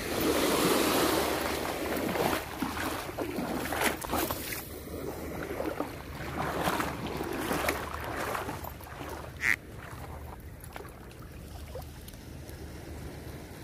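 Small waves lapping at a sandy shoreline with wind on the microphone, stronger in the first second or two. Scattered clicks and knocks run throughout as a spinning rod and reel are handled, with a short high squeak about two-thirds of the way through.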